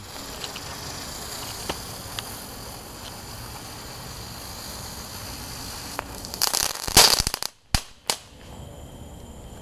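Small dollar-store ground firework spraying sparks with a steady hiss and a few faint crackles, then a loud cluster of sharp pops and bangs about seven seconds in before it dies down.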